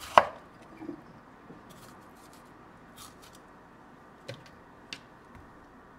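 Kitchen knife cutting through tomatoes and striking a wooden cutting board: one sharp knock just after the start, then a few scattered lighter clicks and taps.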